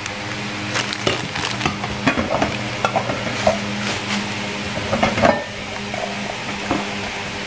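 Crinkling plastic bag and rustling cardboard as a bagged power cord and an aluminium rice-cooker inner pot are handled in their box, with scattered clicks and small knocks, the loudest a little after the middle. A steady low hum sits underneath.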